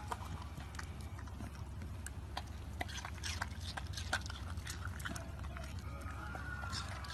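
A corgi eating watermelon chunks from a stainless steel bowl, with many quick, irregular crunches and smacks as it chews.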